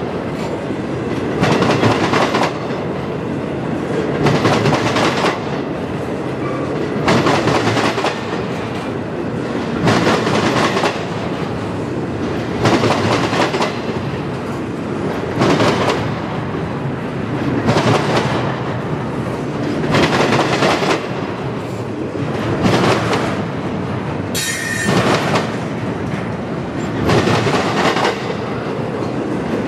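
Norfolk Southern double-stack intermodal freight train rolling past. Its wheels clack in a regular beat, a loud clatter every two to three seconds as each car's trucks go by. Once, late on, there is a brief high wheel squeal.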